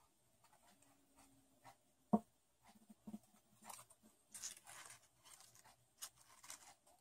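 Faint rustling and crinkling of folded origami paper being handled and pressed together, with a glue stick rubbing on the paper, and one sharp knock about two seconds in.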